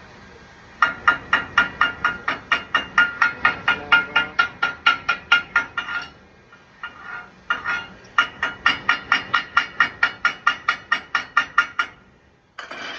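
Rapid metal hammer strikes on a steel plate, about four a second, each with a ringing metallic tone, in two long runs separated by a short pause near the middle. After a stick-welded bead, this is typical of chipping the slag off the weld with a chipping hammer.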